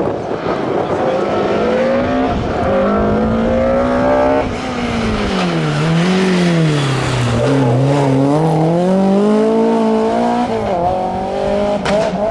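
Classic rally car engine at high revs, climbing in steps as it shifts up, then revs falling away and rising again as it slows and accelerates back out. A couple of sharp cracks near the end.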